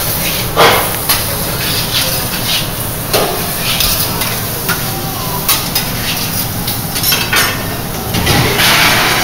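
Prawns sizzling on a flat steel griddle while a metal spatula and carving fork scrape and tap against the plate in scattered strokes. The sizzle grows louder near the end.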